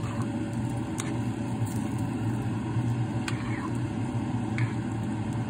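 A steady low mechanical hum with a faint steady tone above it, and three faint short clicks a second or two apart.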